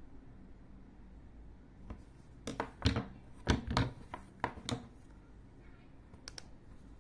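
Plastic motorcycle intercom units being handled: a quick run of knocks and clicks around the middle, then two faint clicks near the end.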